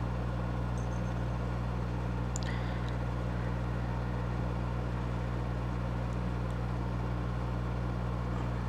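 Steady low background hum, with two or three faint small clicks about two and a half seconds in.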